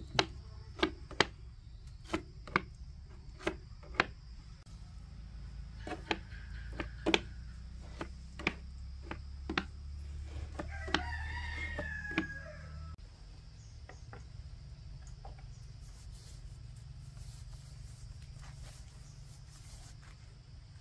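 Sharp knocks repeated roughly once a second for about twelve seconds over a low hum that stops about thirteen seconds in. A rooster crows about eleven seconds in.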